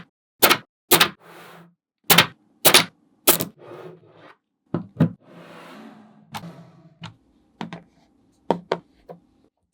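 Small magnetic balls clicking as they snap together, about a dozen sharp clicks at an irregular pace, the loudest ones in the first few seconds. Between the clicks are short stretches of the balls scraping and rolling against each other.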